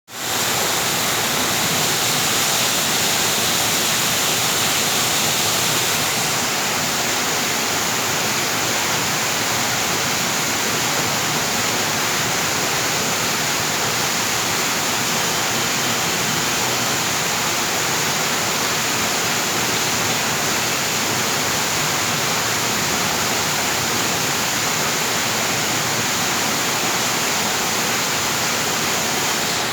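Water falling and splashing steadily in a loud, continuous rush, its tone shifting slightly about six seconds in.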